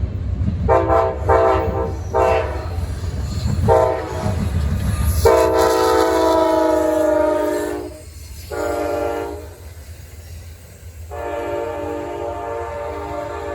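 Amtrak locomotive's multi-note air horn sounding a series of blasts: four short toots, then a long blast, a short one and another long one that runs on. Under the first few toots is the low rumble of the passing train, which drops away about five seconds in.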